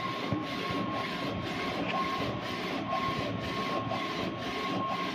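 DTF printer with an Epson XP600 printhead running a print job: a steady mechanical whir with a faint high whine, in a rhythm that repeats about twice a second.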